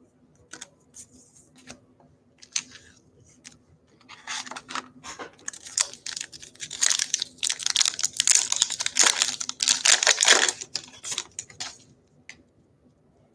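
A few light clicks of trading cards being handled, then from about four seconds in a foil trading-card pack wrapper being torn open and crinkling for about seven seconds.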